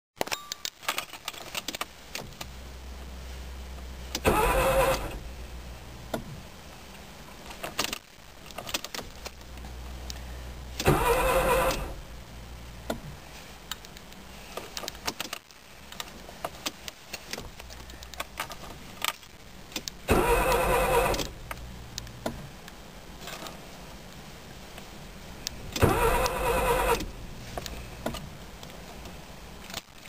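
1995 Nissan Micra 1.0-litre four-cylinder turned over on the starter in four short bursts of about a second each, with light clicks between attempts. This is a car that won't start.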